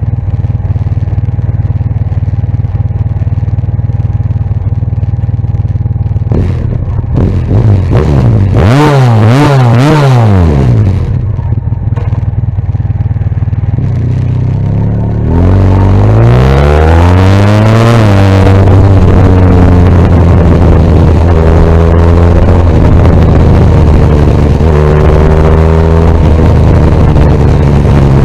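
Honda VFR1200X's V4 engine through an Arrow carbon exhaust, idling, then blipped in several quick revs about eight seconds in. A longer rev climbs around sixteen seconds in, then the engine holds at higher revs with short throttle blips.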